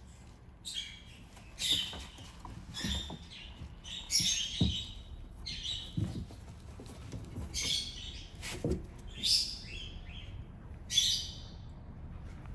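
Small birds chirping in short bursts every second or two, with a few soft low thumps from kittens tussling on a mat.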